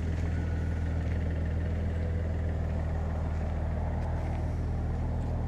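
An engine idling steadily: an even, low hum with a fine regular pulse.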